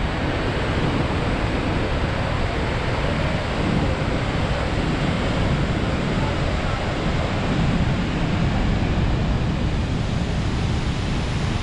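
Steady rush of Niagara Falls, a huge volume of water pouring over the falls and crashing into the gorge, with wind gusting on the microphone.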